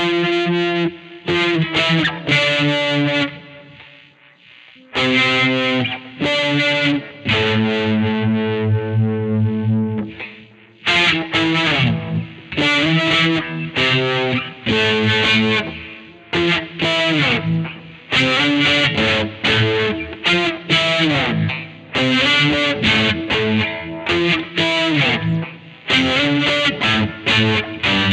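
2003 Godin SD 24 electric guitar played through distortion, loose noodling of chords and single-note riffs. Notes are left to ring and die away twice, about four and about ten seconds in.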